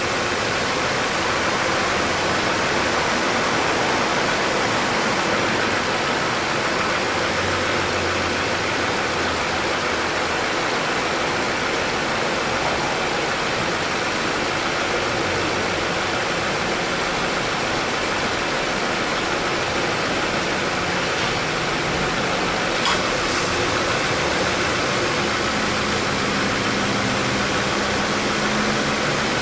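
2018 Subaru Impreza 1.6 running with its air conditioning on: a steady rushing fan noise with low hums that come and go, a brief click about 23 seconds in, and a low steady hum near the end. The A/C compressor makes an abnormal noise each time it engages and cycles two to three times a minute, which the uploader takes for light compressor wear.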